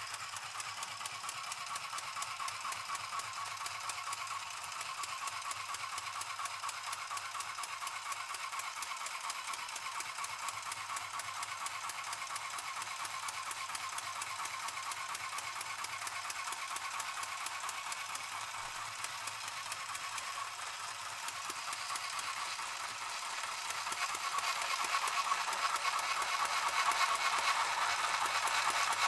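Mini sewing machine running continuously, its needle mechanism making a fast, even rattle as it stitches; it grows louder over the last few seconds.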